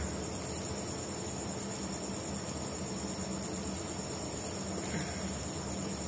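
Crickets chirping in a steady, high-pitched chorus, with a faint knock about five seconds in.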